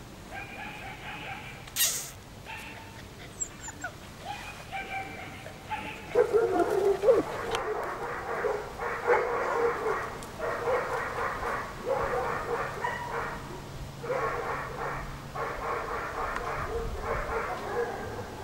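German Shepherd puppies whining and yipping. Short high whimpers come first, then from about six seconds in a long run of drawn-out high cries. A single sharp click sounds about two seconds in.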